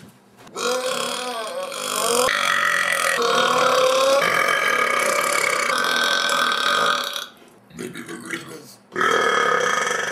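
A man's long, loud belch lasting over six seconds, its pitch bending and then stepping between held notes. A few short belches follow, and another long belch starts about nine seconds in.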